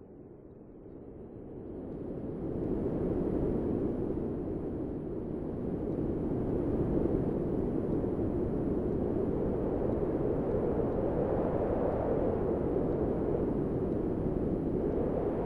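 Recorded wind sound effect: a steady, low rushing of wind that fades in over the first three seconds, then holds with slow, gentle swells.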